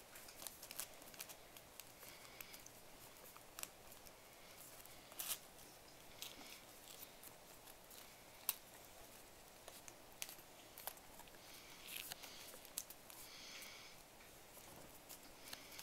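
Faint crinkling and rustling of folded origami paper as a transforming origami model is twisted little by little into a star, with scattered short crackles and a few brief rustles.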